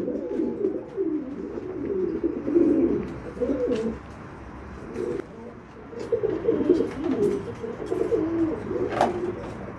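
Domestic pigeon cooing in low, wavering rolls: the courtship cooing of a male circling a hen. The cooing comes in two stretches with a lull about four seconds in.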